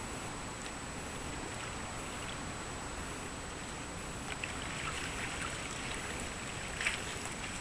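Steady harbour ambience at night: an even hiss of wind and water with faint lapping, a few small splashes around the middle and one near the end. A faint thin high-pitched whine runs under it.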